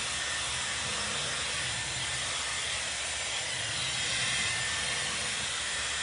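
Dyson Airwrap hot-air styler blowing air through a curling barrel as a strand of hair is wound on it: a steady, even rushing hiss.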